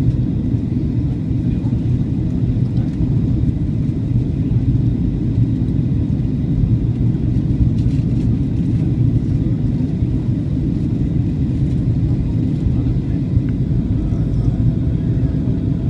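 Steady low cabin rumble of a Boeing 737-800 in flight on its descent for landing: the CFM56-7B engines and the airflow over the fuselage, heard from a window seat by the wing.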